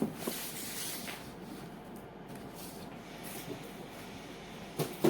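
Cardboard packaging being handled and opened: soft rustling and scraping against a low hiss, with a few louder knocks near the end.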